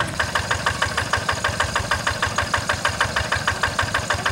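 Single-cylinder diesel engine of a two-wheel hand tractor running steadily with a rapid, even chugging beat as it works the flooded rice paddy.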